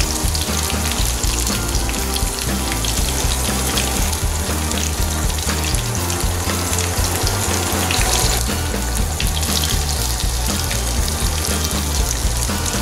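Stuffed okra frying in hot oil in a pan: a steady sizzle with fine crackling.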